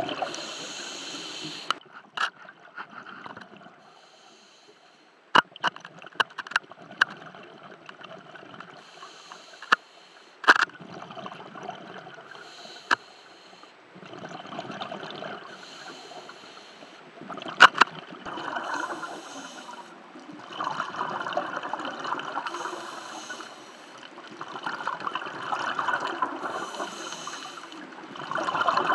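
A scuba diver's exhaled breath through the regulator bubbling underwater, in washes of a few seconds that come and go, heaviest in the second half. Single sharp clicks break in now and then.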